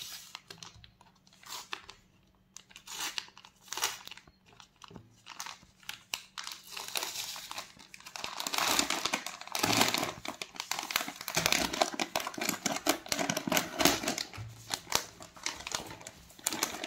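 Clear plastic packet crinkling as it is handled and opened and a polyester scarf is drawn out of its sleeve: scattered separate rustles at first, then denser, continuous crinkling from about halfway.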